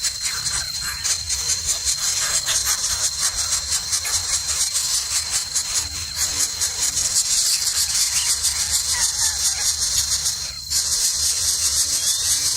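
Steady high-pitched hiss with a thin constant tone running through it, dropping out briefly about ten and a half seconds in.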